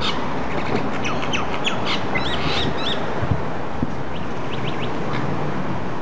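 Common mynas calling while fighting: scattered short high squawks and chirps, with a quick run of arched notes about two seconds in, over a steady hiss of background noise.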